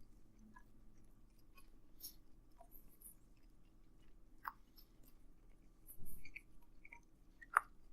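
A person chewing pizza with the mouth closed, soft wet mouth sounds and small clicks, with a louder burst of chewing about six seconds in and a sharp click near the end.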